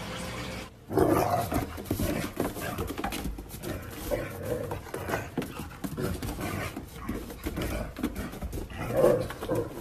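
A dog vocalizing in short, irregular bursts, starting about a second in after a steady hum cuts off.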